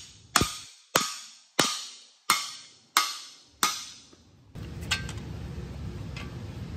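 Hammer blows on the long steel bar of a cam bearing installer, driving a new cam bearing into its bore in an LS V8 block: six evenly spaced strikes, about one every two-thirds of a second, each ringing briefly. The blows stop about four seconds in, leaving a faint steady hiss.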